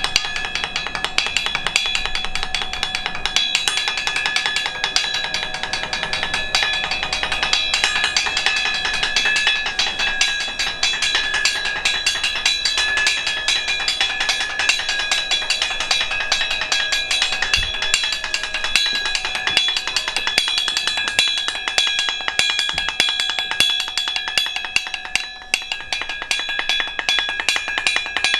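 Fast percussion music: dense, rapid drum and wood-block-like strikes over steady high ringing tones, with a brief drop about 25 seconds in.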